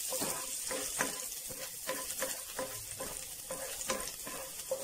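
Chopped garlic sizzling in hot oil in a nonstick frying pan, with a cooking spoon scraping and knocking against the pan again and again as it is stirred. This is the start of the sauté, with the garlic still pale.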